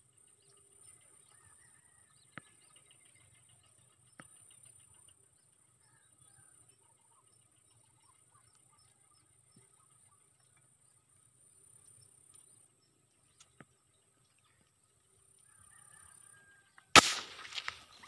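A single sharp airgun shot about a second before the end, following a long quiet wait filled with faint scattered bird chirps and a thin steady high tone. Rustling follows the shot.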